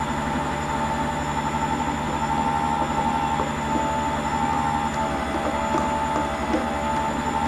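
Steady hum and whine of a small electric motor running, with a few faint clinks in the second half.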